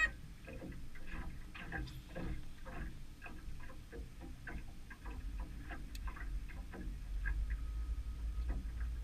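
Faint, irregular clicking and ticking, a few light clicks a second, over a steady low rumble.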